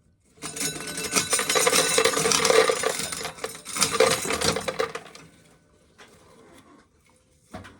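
Dry shelled corn kernels pouring out of a pail, a dense rattling clatter of many small hard grains lasting about four and a half seconds, tailing off into a few scattered clicks.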